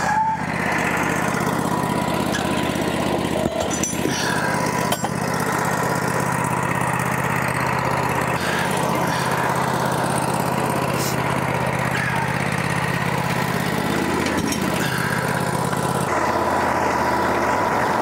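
Wood-Mizer LT40 portable sawmill's engine running steadily, with a thin steady whine above the engine note and a few short clunks around four to five seconds in; the engine note shifts slightly near the end.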